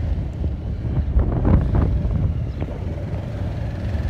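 Wind buffeting the microphone on a moving motorcycle, over the low rumble of the bike and the road.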